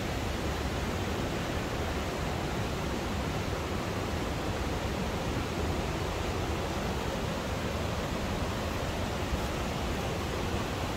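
The Rednitz river rushing over rapids, a steady, even sound of fast-flowing water.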